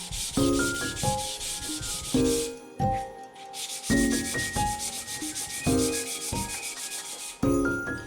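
Walnut wood being sanded: a steady rasping hiss that stops for about a second around a third of the way in, then starts again. Background music with soft melodic notes plays under it.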